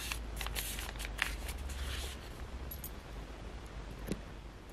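A stack of paper and cardstock journal pages being handled and set down: soft rustling of paper with a few light taps.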